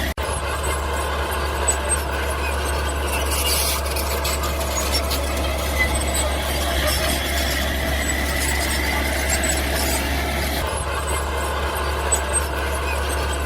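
Mini bulldozer running steadily, its tracks and running gear squealing over a low engine rumble.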